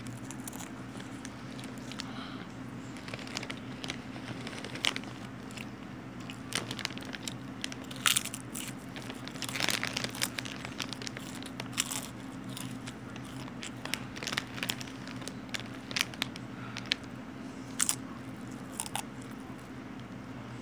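Chips being crunched and chewed, with irregular sharp crunches, over a steady low hum.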